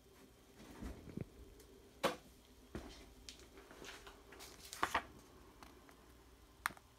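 Faint handling noises: a few scattered light clicks and knocks and a rustle of paper as a printed instruction sheet is picked up and held.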